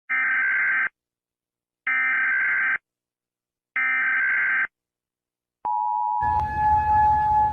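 Emergency Alert System broadcast tones: three short bursts of screechy digital data tones (the SAME header), each under a second long and evenly spaced, then the steady two-tone attention signal starting about five and a half seconds in, with a noisy low rumble joining under it half a second later.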